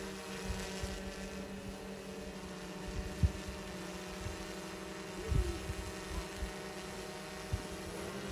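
A steady, even motor drone, with a single sharp knock about three seconds in.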